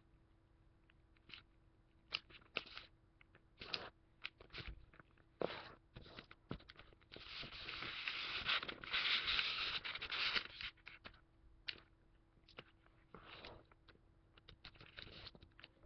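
Origami paper being folded and creased by hand: scattered crisp taps and rustles as fingers press the folds, with a few seconds of continuous rustling in the middle as the sheet is slid and smoothed.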